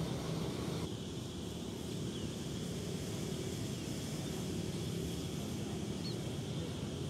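Outdoor field ambience: a steady low rumble with a faint, brief bird chirp about six seconds in.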